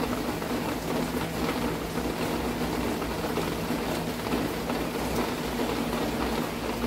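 Heavy monsoon rain falling, a steady hiss with a faint low hum underneath.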